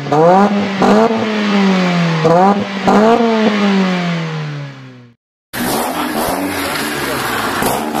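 VW Golf Mk3 engine and twin-tip exhaust, stationary, revved with three quick throttle blips; after each one the revs sink back slowly, and the last dies away about five seconds in. After a short silence, a noisier recording of the car being driven hard starts.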